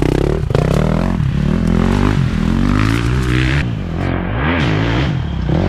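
Dirt bike engine revving up and down again and again as the throttle is worked, its pitch rising and falling every half second or so.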